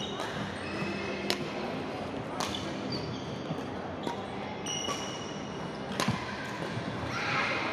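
Badminton rackets striking a shuttlecock in a rally, a sharp crack every second or two, with brief high squeaks of shoes on the wooden court floor in between.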